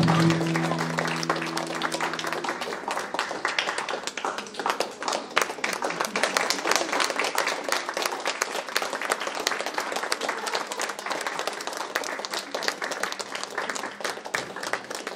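An audience applauding, steady dense clapping throughout. A held music chord fades away during the first two or three seconds.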